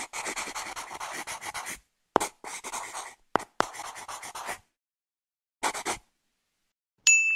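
Pencil-writing sound effect: a pencil scratching on paper in four bursts, the first about two seconds long and the last brief. Near the end comes a short, high, bright chime.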